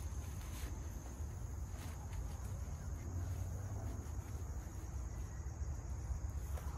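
A steady high insect trill, typical of crickets, over a constant low rumble. A few faint rustles and clicks come from a backpack being handled in the first two seconds.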